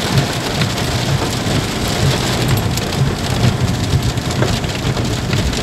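Heavy rain falling on a car's roof and windscreen, heard from inside the moving car as a dense patter of small taps over a steady low rumble of engine and road.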